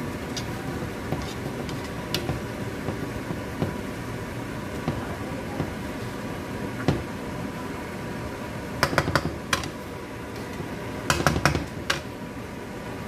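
Spatula clacking and scraping against a nonstick wok as stir-fried rice noodles are tossed, over a steady background hiss. Scattered single clicks, then two quick clusters of sharp clacks, one about nine seconds in and another about eleven seconds in.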